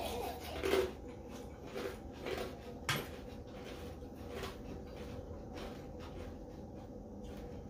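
Mouth sounds of eating, chewing and smacking on fried fritters and noodles, as a scattering of short clicks, with one sharper click about three seconds in. A faint steady hum runs underneath.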